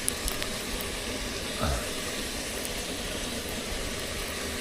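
Steady rushing hiss of flowing river water, with a few light clicks near the start and one short falling tone about a second and a half in.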